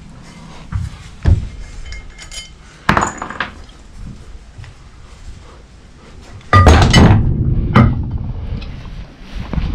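Metal tools and engine parts knocking and clinking during clutch and flywheel work, with a few sharp knocks early, a loud clattering burst about two-thirds of the way through and another sharp knock just after.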